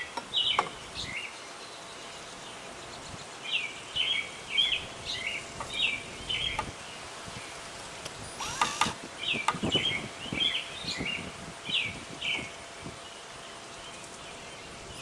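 A songbird singing repeated short, chirpy phrases in two bouts over steady outdoor background noise, with a brief scrape or knock about eight and a half seconds in.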